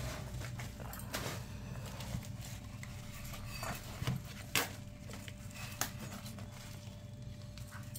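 Hands peeling the tough outer bracts off a banana flower: a few separate crisp clicks and rustles over a low steady hum.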